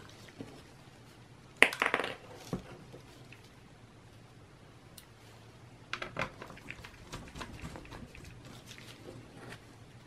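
Small screws being handled and driven with a mini Phillips screwdriver into the plastic bottom cover of a Dell Latitude E6440 laptop. A quick cluster of sharp clicks and clatter comes about one and a half seconds in, then a run of light clicks and ticks from about six seconds in.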